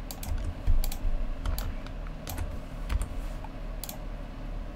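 Computer keyboard keys and mouse buttons clicking at uneven intervals, often two clicks close together, over a low steady hum.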